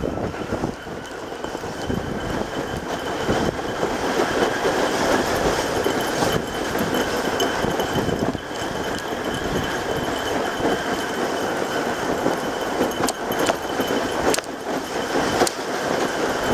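Rigid plastic ahkio sled hull sliding and rumbling over snow as it is towed, with a continuous rattling scrape and a few sharp knocks in the second half.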